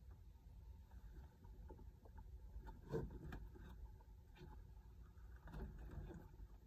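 Near silence in a chicken coop with a steady low rumble. Roosting hens make a few soft feather rustles as they shift and preen, about three seconds in and again near the end.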